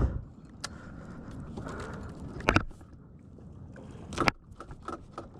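Water and wind noise around a fishing kayak at sea, with a few sharp knocks and clicks of gear being handled on the hull, two louder ones about two and a half and four seconds in.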